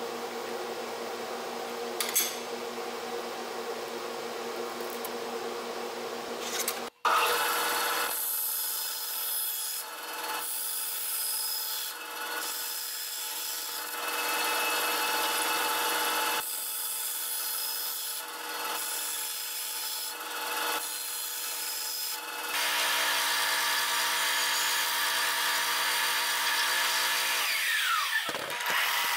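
A steady hum, then a vertical band saw cutting aluminium sheet in several passes that start and stop. From about two-thirds of the way through a belt sander runs steadily, with a falling whine near the end.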